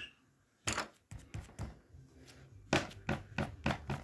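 Handling noise: irregular light knocks and clicks of things being moved about on a tabletop. One knock comes just under a second in, then a quick cluster of clicks, and another cluster near the end.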